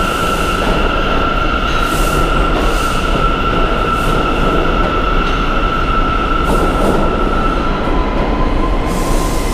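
New York subway train of R179 cars pulling out through the station into the tunnel: steady rumble with a continuous high-pitched wheel squeal. The squeal drops to a lower tone about eight seconds in.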